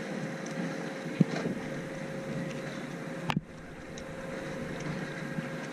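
Steady drone of a distant engine, with a sharp click about a second in and a knock a little over three seconds in.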